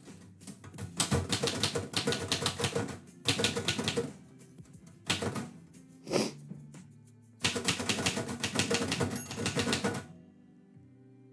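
Typewriter typing in quick bursts of keystrokes with short pauses and a few single strokes between them, stopping near the end. Background music plays under it.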